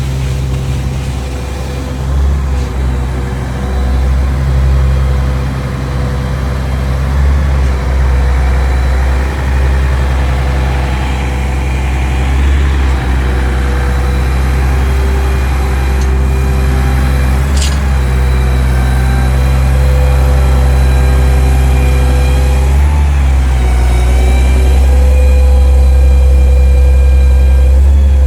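Diesel engine of a 47 m truck-mounted boom concrete pump running steadily under load, a loud, even low drone that grows a little louder in the second half.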